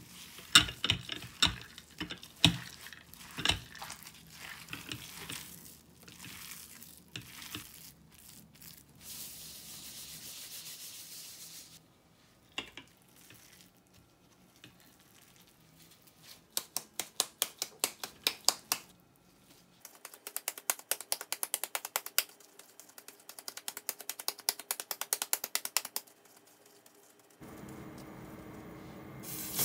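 Gloved hands kneading hamburger mixture of ground meat and onion in a glass container, with irregular squelches; then a patty being tossed from palm to palm in quick, even slaps, several a second, in two runs. Near the end a steady sizzle of a patty frying in a pan.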